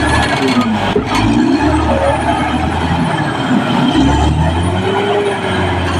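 Caterpillar D6R crawler bulldozer's diesel engine running under load, its revs rising and falling every second or two, with a faint high whistle that rises and falls along with it.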